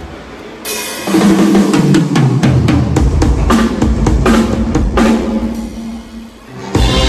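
Drum kit played live, a busy run of fast snare and bass drum hits that starts about a second in and thins out near the end, when sustained band music comes back in.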